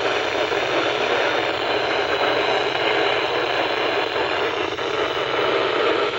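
Steady radio static hiss from a weather radio receiver tuned to a NOAA Weather Radio station, with no voice or tones on the channel.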